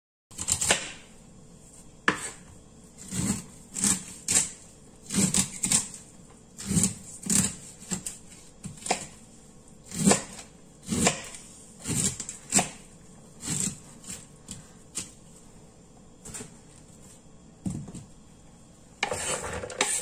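Kitchen knife cutting kernels off an ear of fresh corn onto a wooden cutting board: irregular strokes, each ending in a sharp knock on the board, roughly one a second. Near the end comes a longer scraping rustle as the cut kernels are pushed off the board into a plastic bowl.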